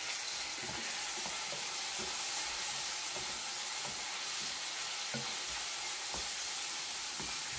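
Diced chicken breast and onion sizzling in oil as they sauté in a frying pan, a steady hiss, with a wooden spoon stirring and knocking softly against the pan now and then.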